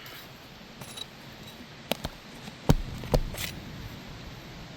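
A handful of sharp clicks and knocks, the loudest about two and a half seconds in, from a hand tool and asphalt shingles being handled while staples are pulled out of the shingles.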